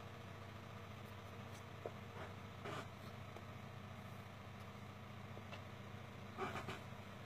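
Steady low background hum, with a few faint clicks about two, three and six and a half seconds in.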